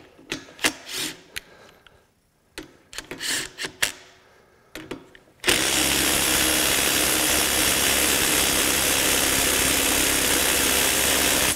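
Ridgid 18-volt sub-compact 3/8-inch impact wrench running steadily on a nut for about six seconds, starting about halfway in and stopping abruptly. It is preceded by light metal clinks and knocks of the socket and tool being handled.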